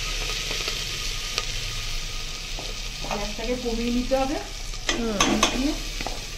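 Marinated basmati rice sizzling in hot mustard oil as it is spooned into an aluminium pot, with a spoon scraping the rice out of a bowl. Two short squeaky scrapes come about three and five seconds in.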